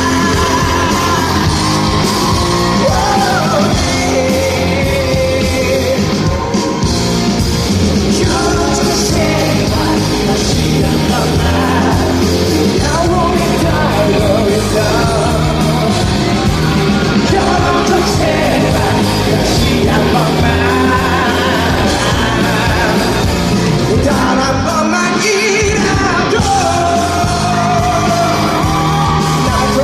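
Live rock band music with singing, loud and steady, in a large hall.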